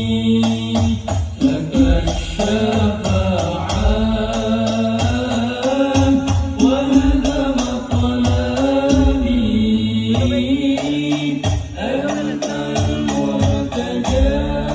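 A Banjari group performing: male voices chant a sholawat (Arabic devotional song in praise of the Prophet) in melismatic unison over terbang frame drums played in a fast, steady rhythm.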